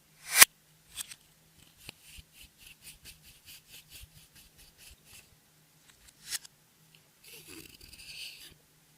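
Clear slime being worked by hand: a sharp sticky pop near the start and another a second later, then a run of small clicks at about three a second, another pop, and a short crackly squish near the end.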